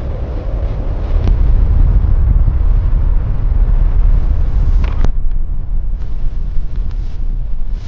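Strong blizzard wind: a loud, steady rumble with hiss over it. A brief sharp sound cuts through about five seconds in.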